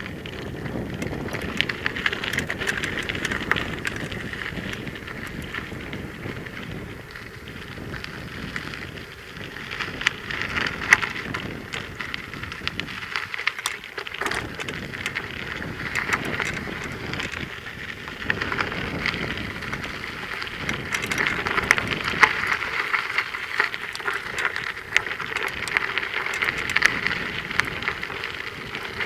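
Mountain bike riding over a rough dirt trail: a steady crackle of tyres on loose grit, with scattered clicks and knocks and a low rumble of wind on the microphone, easing briefly about halfway.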